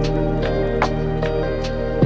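Calm instrumental background music with held notes over a steady bass and a soft, regular beat.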